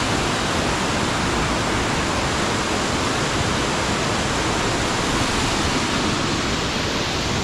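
Raven Cliff Falls' waterfall pouring down the cliff at close range: a loud, steady, unbroken rush of falling water.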